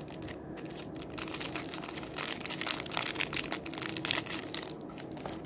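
Thin clear plastic bag crinkling as hands handle and open it to get at a cloth for cleaning glasses. It comes as a dense run of sharp crackles, thickest from about a second in until shortly before the end.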